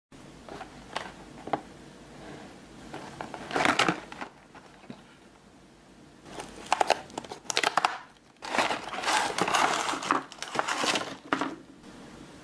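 Cardboard box and packaging of a chocolate-making kit handled by hand: crinkling and rubbing in several bursts, with a couple of sharp clicks in the first two seconds.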